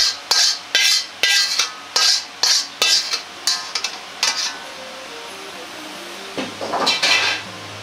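A metal cooking utensil scraping the inside of a carbon-steel wok, about ten quick scrapes, two or three a second, pushing the last of a thick sauce out onto a plate. A longer metallic clatter follows near the end.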